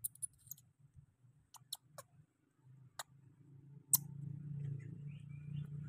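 A few scattered sharp clicks, then from about four seconds in a distant vehicle engine hum fading in and growing louder.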